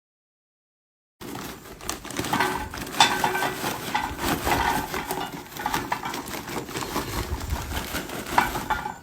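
Busy clinking and clattering of small hard objects, many short knocks and clinks in quick succession, starting suddenly about a second in.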